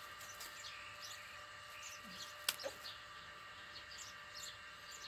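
Faint bird chirps scattered in the background, with one sharp click about halfway through.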